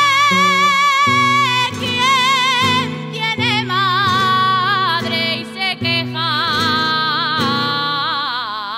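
Music: a solo singing voice with wide vibrato over an accompaniment of steady held low notes.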